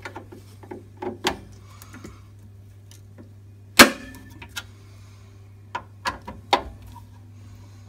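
Metal clicks and knocks from a screwdriver on the fixings of an Atag boiler's burner assembly as it is refitted. There is one loud clunk about four seconds in and a quick run of sharp ticks near the end, over a steady low hum.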